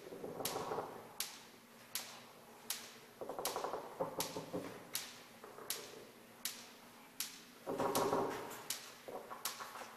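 Live experimental sound performance: sharp clicks repeat evenly about every three-quarters of a second. Three times a louder swell of fast, buzzy rattling rises over them.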